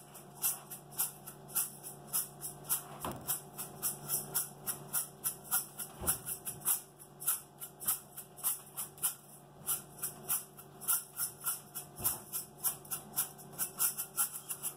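A rhythmic beat of crisp shaker-like ticks, about three or four a second, over a steady low hum, with a few deep thuds spaced a few seconds apart.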